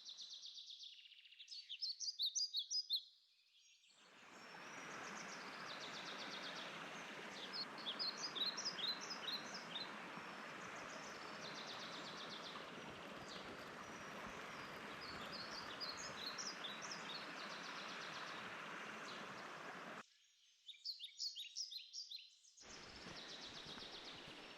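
A songbird repeats a short phrase of rapid high chirps four times over the steady rush of a mountain stream. The water noise drops out abruptly twice, leaving only the birdsong.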